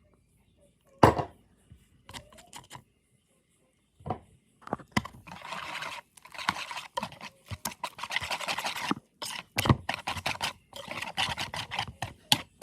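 A kitchen utensil scraping against a bowl, with a sharp knock about a second in and then a long run of scraping strokes and small clicks from about four seconds in.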